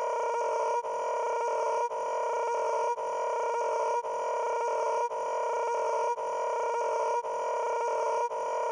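A steady droning tone, several pitches held together, looped over and over with a short break about once a second.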